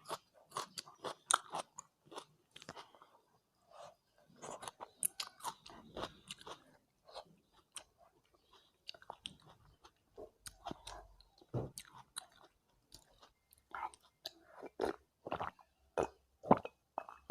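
Close-miked chewing of curry and rice: a quick, irregular run of wet mouth clicks and smacks, thinning out briefly midway.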